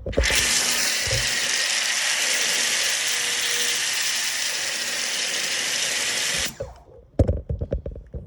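Active VE52 electric pressure washer spraying water: a steady high hiss that cuts off suddenly about six and a half seconds in, followed by a few knocks.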